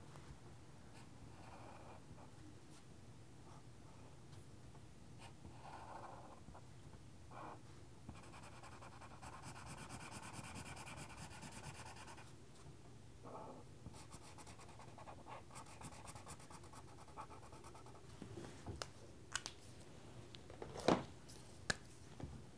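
Felt-tip marker scratching on paper in quick back-and-forth strokes while colouring in, faint throughout. Near the end come a few sharp clicks and knocks as markers are set down and swapped on the table.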